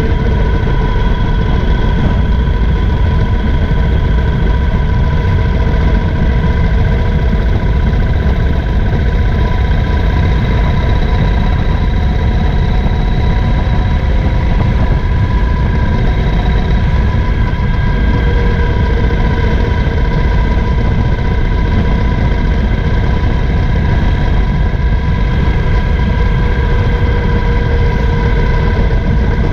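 Triumph Thunderbird LT's parallel-twin engine running steadily while the motorcycle cruises at an even speed, with a heavy low rumble and no change in pitch.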